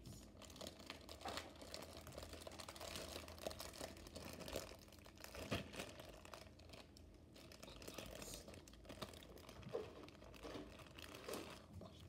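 Clear plastic zip-top bag crinkled and squeezed in the hands: soft, irregular crackling with a few louder crinkles scattered through.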